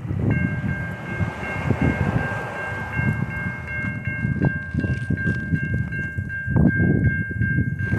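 Railroad grade-crossing warning bell starts ringing and keeps on steadily as the crossing activates for an approaching train. A low rumble of wind and a car passing sits underneath.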